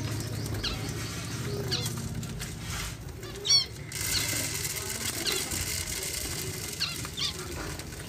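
Aviary finches and budgerigars: scattered short falling chirps and wings flapping as birds fly to the feeder, with a loud quick run of chirps about three and a half seconds in.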